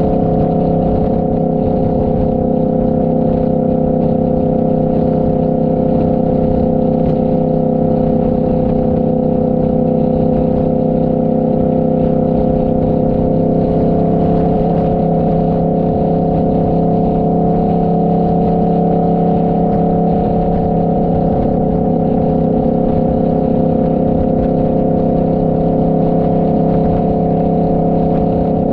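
Motorcycle engine running steadily at cruising speed, with wind noise underneath; the pitch rises slightly about halfway through and eases back a few seconds later.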